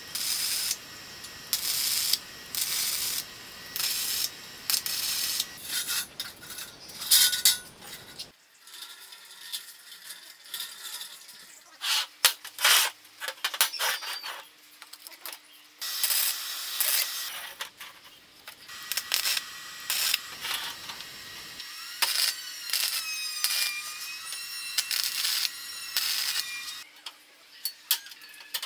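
Short bursts of electric arc-welding crackle, about one a second, as tack welds are laid on a metal tube frame. After a cut come the clinks, knocks and scrapes of square steel tubing being handled and fitted together, with some high squeaky scraping near the end.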